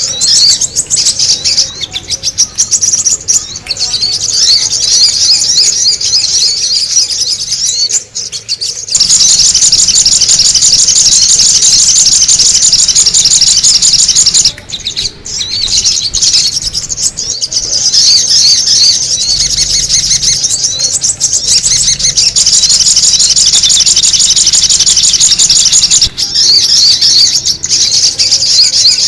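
Sogon birds chirping in a dense, rapid, high-pitched chatter, used as a bird-lure call. It runs almost without a break, dipping briefly about eight seconds in and again about fifteen seconds in.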